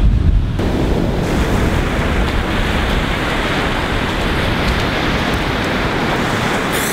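Ocean surf washing steadily on the shore, with wind buffeting the microphone, heaviest in the first half second.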